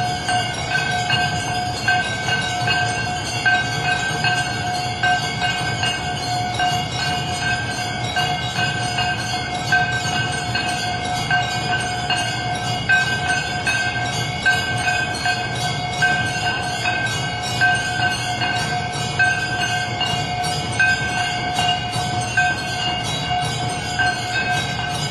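Temple bells ringing continuously during an aarti: a sustained ringing tone that swells about once a second over a rapid clatter of strikes, with a low rumble underneath.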